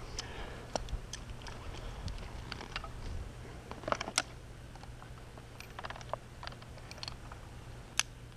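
Scattered light clicks and clinks of climbing gear and harness hardware being handled while a chainsaw is clipped onto a climbing harness. There are sharper clicks about four seconds in and near the end, over a low steady hum.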